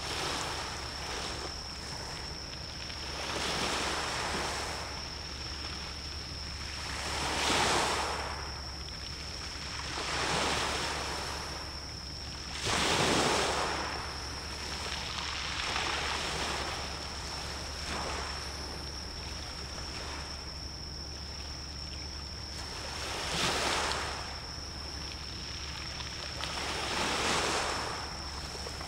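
Small waves washing in every few seconds, each a soft rush that swells and fades, with the strongest about a third and halfway through. A thin, steady high-pitched tone and a low hum run underneath.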